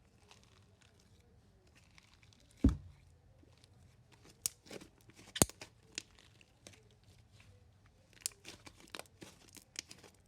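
Marshmallow slime being stretched and squeezed by hand, tearing with scattered sticky clicks and pops, and one dull thump about two and a half seconds in.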